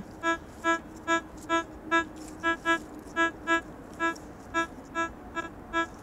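Metal detector sounding a short, low beep over and over, about two to three a second and always at the same pitch, as the coil passes back and forth over a target. The detectorist calls it a strange signal that reads about 8 to 18.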